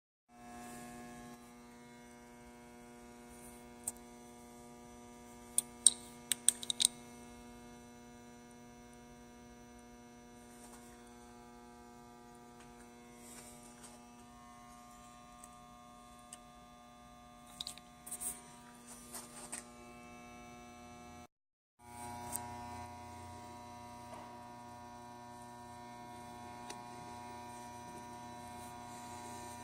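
Steady electrical hum with several steady tones, broken by a handful of short, sharp clicks around six seconds in and again around eighteen to twenty seconds in. The hum drops out briefly just after twenty-one seconds and comes back a little louder.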